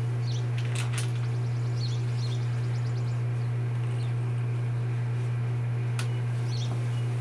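A steady low hum, with short bird chirps repeating every second or so. There are a few sharp clicks, about a second in and again near the end.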